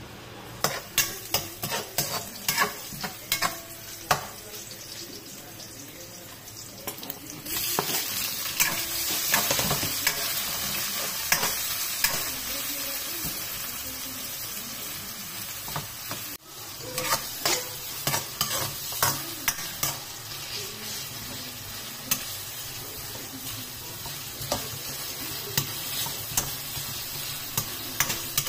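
A metal spoon knocking and scraping in a frying pan. From about seven seconds in, onion, garlic and tomato sizzle in hot oil as they are stirred, with the spoon clacking against the pan now and then.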